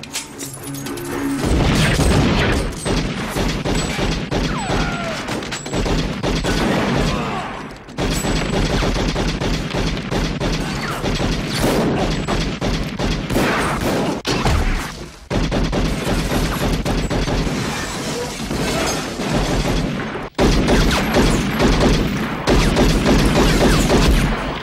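Movie gunfight sound: rapid, dense gunfire with crashes and impacts, mixed with music, broken by a few short drops at cuts and loudest near the end.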